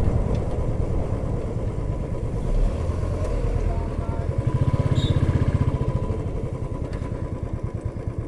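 Royal Enfield Bullet 350 Classic's single-cylinder engine running at low road speed with a steady thumping beat, the beat growing quieter near the end as the bike slows.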